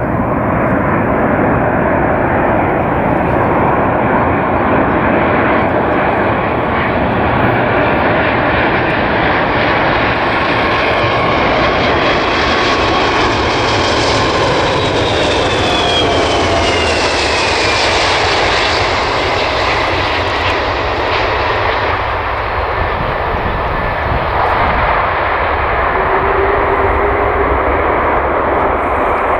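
Boeing 747-400F freighter's four Rolls-Royce RB211 jet engines on landing, a continuous loud rumble and whine. It swells to its peak about halfway through, the whine falling in pitch as the aircraft passes, then eases off.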